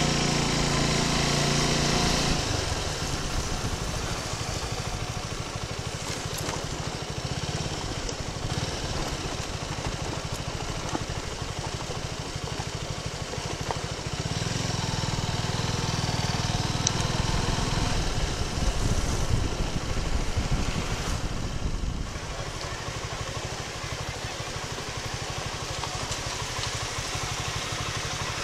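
Suzuki Gixxer 250's single-cylinder engine running under way, heard from the saddle with wind and road noise over it. The engine eases off about two seconds in and picks up again around the middle.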